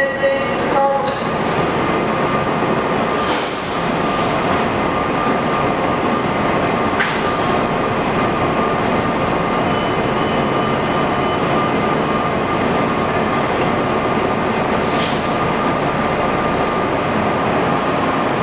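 Breda 3000-series Metrorail car standing at the platform with its doors open, its onboard equipment running with a steady hum and a high, even whine. A brief hiss comes about three seconds in and again near fifteen seconds.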